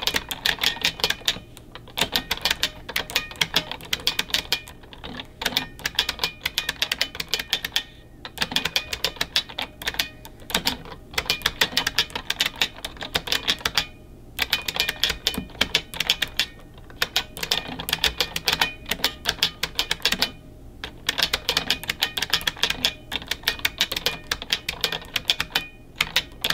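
Fast typing on a mechanical keyboard: clacking keystrokes in runs of a few seconds, broken by brief pauses.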